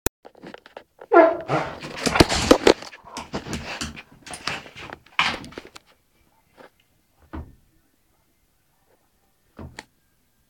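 Rhodesian Ridgeback dog making a short vocal sound that falls in pitch about a second in, followed by a few seconds of rustling and knocking and then a few isolated soft thumps.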